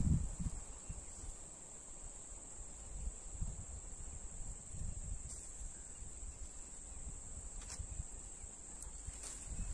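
Steady high-pitched insect trill, unbroken throughout, with a low thump at the very start and soft low rumbles and a few faint clicks over it.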